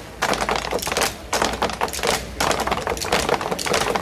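Malambo troupe's bombo drums struck with sticks: a fast run of sharp, dry clicking strikes with little deep drum boom, broken by a few short pauses.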